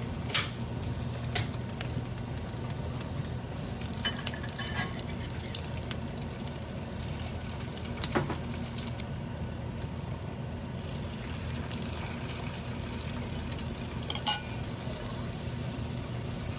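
Food frying in a pan with a steady sizzle, broken by a few sharp clinks of a utensil against the pan or dishes.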